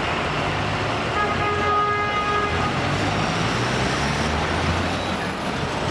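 Street traffic with the low, steady hum of engines running, and a vehicle horn sounding once for about a second and a half, starting about a second in.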